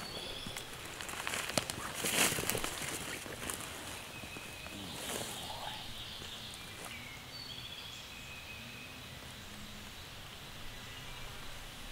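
Footsteps of rubber boots through leaf litter and undergrowth, loudest about two seconds in, then quieter rustling. Short bird calls chirp in the background.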